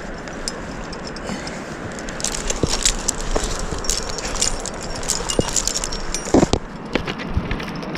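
Close handling noise of a climber moving on a rock slab: hands and fleece sleeve scuffing and brushing over the rock, with scattered small clicks and taps and a few stronger knocks about six and a half seconds in.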